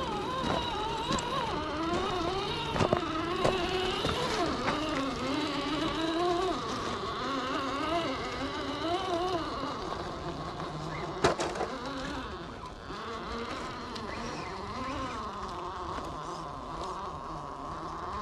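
Small electric motor and gearbox of an RC rock crawler whining, the pitch rising and falling with the throttle as the truck climbs over rock. There are two sharp knocks, one about three seconds in and a louder one about eleven seconds in. The whine is somewhat quieter from about twelve seconds on.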